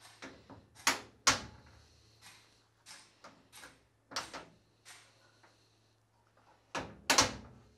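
Porsche 911 car door being worked by hand: a solid shutting thump about a second in and again near the end, with lighter clicks of the latch and outside door handle in between.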